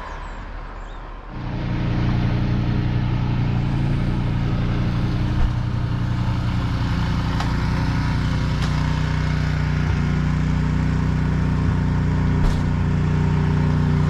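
A motor vehicle engine running with a steady low hum at constant speed, coming in about a second in.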